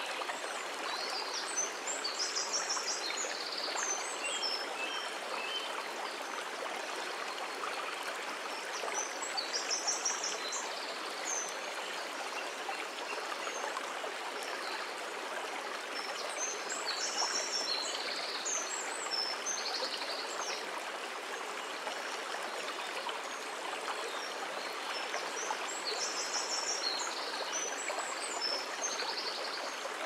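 Shallow rocky woodland stream running steadily over stones and a small cascade. A bird sings short, high phrases about four times over it.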